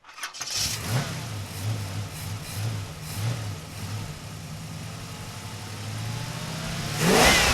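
Car engine running and revving in pulses, then a louder pass with the pitch gliding up and down about seven seconds in.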